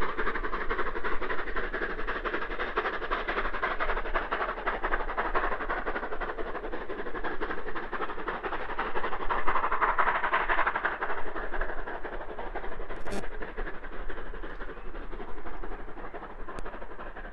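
SR Merchant Navy class steam locomotive 35018 British India Line, a three-cylinder Pacific, working its train away down the line: a steady rumble of exhaust and wheels on the rails, swelling a little about ten seconds in.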